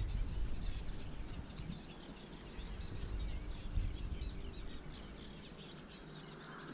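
Small birds chirping and singing in quick, overlapping calls, over a low rumble that comes and goes in the first four seconds and then dies down.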